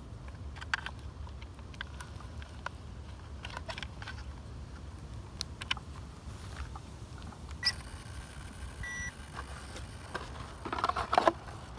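Hands handling a Tamiya DT-03 RC buggy: scattered plastic clicks and rustles as the battery is plugged in, the wires are tucked into the chassis and the body shell is picked up, with a louder rustle near the end. A brief beep sounds about nine seconds in, and a steady low wind rumble on the microphone runs underneath.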